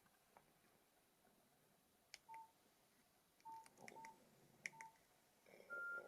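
Faint keypad presses on a Nokia 6600 slide phone: short key clicks, four of them sounding a brief beep from about two seconds in, then a single higher beep near the end.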